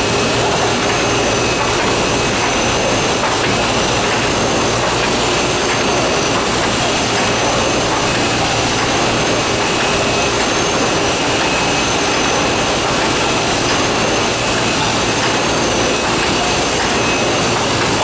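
1993 Sakurai SC 102 DX screen-printing line running: a steady mechanical whir from its conveyor and the dryer's blowers, with a faint regular clicking a little more than once a second.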